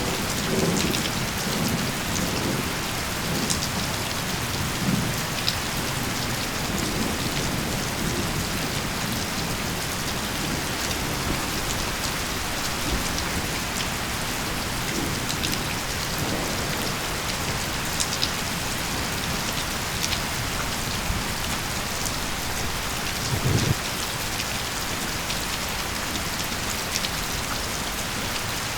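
Steady rain falling, with scattered drop ticks. A low thunder rumble fades out at the start, and a short rumble of thunder comes near the end.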